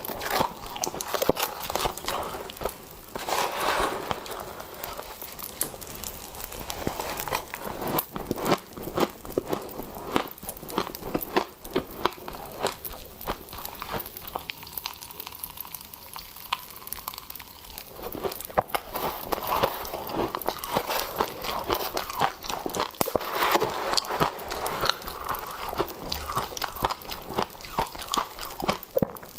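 Close-up crunching and chewing of frost with popping candy, dense irregular crackling and snapping in the mouth, with louder crunches now and then.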